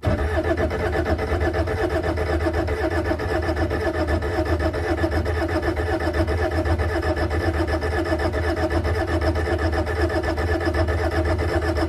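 Electric oil priming pump of a TRD 152E dry-sump system running steadily with a strong low hum, switched on with the ignition to build oil pressure before the engine is started.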